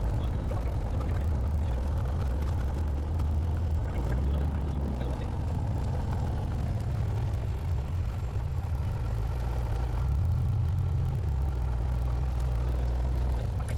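Light aircraft's piston engine and propeller running at low taxi power, heard from inside the cabin as a steady low drone.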